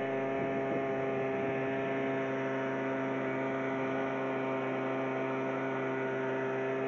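Small boat's outboard motor running steadily at an even speed, a constant droning hum with no change in pitch.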